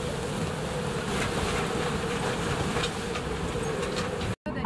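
Gale-force wind of about 35 to 40 knots rushing over the boat and the choppy water, with a steady droning hum underneath. The sound cuts off abruptly near the end.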